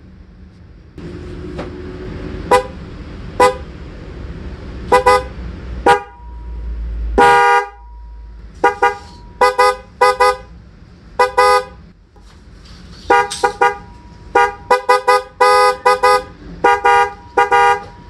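Pairs of electric snail horns, a Hella Midnight Black twin-tone set and a Denso Power Tone set, sounded in short toots, each a two-note chord. There is one longer blast about seven seconds in and quick runs of toots later. A low rumble lies under the first seven seconds.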